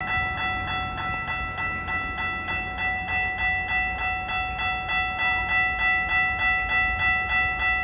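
Railroad grade-crossing warning bell ringing steadily, about three strokes a second, over a low rumble.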